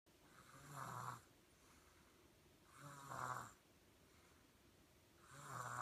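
Baby snoring in its sleep: three snores at an even pace, about one every two and a half seconds, each under a second long.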